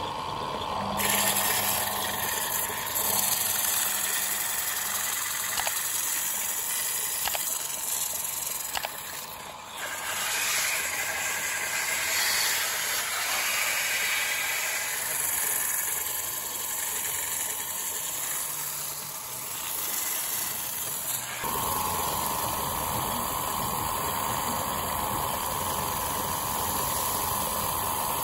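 Wood lathe running while sandpaper is held against the spinning turned piece, a steady hiss of abrasive on wood over the hum of the machine. The sound changes abruptly in tone a few times.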